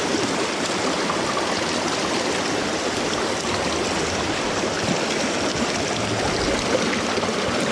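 Mountain stream rushing steadily over rocks through pocket water.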